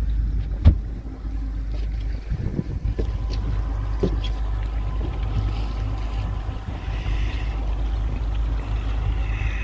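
Twin Yamaha 250 outboard motors running steadily at trolling speed, a low hum with some wind on the microphone. A sharp knock comes just under a second in, with a few lighter knocks after it.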